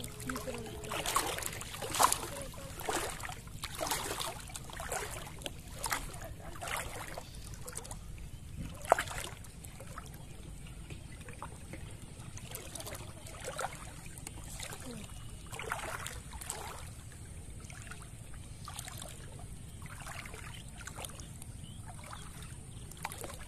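Pond water splashing and sloshing as people wade through it and drag a cast net, in irregular splashes that are busier and louder in the first half, over a steady low rumble.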